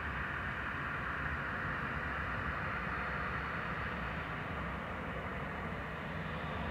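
Boeing 737-800's CFM56-7B turbofan engines running steadily at taxi power: an even rushing noise with a low rumble beneath.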